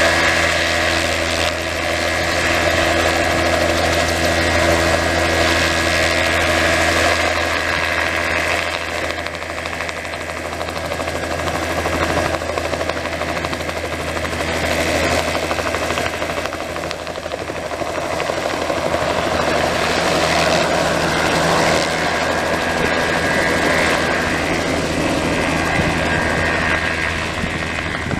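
Crop-spraying helicopter sitting on its nurse truck with the engine and rotor running, a steady high whine over a low drone while it is reloaded. Toward the end it lifts off and flies away.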